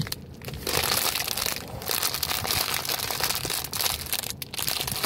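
Plastic snack bag of animal crackers crinkling and crackling as it is squeezed and twisted in the hands.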